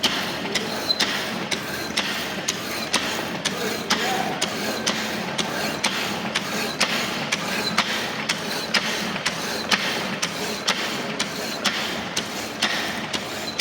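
A workshop machine running with a steady hum and a regular clacking of about two to three knocks a second.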